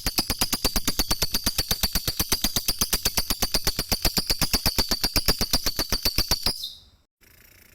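Lovebird 'ngekek' call: a long, rapid chattering trill of about a dozen sharp, high notes a second that stops about six and a half seconds in.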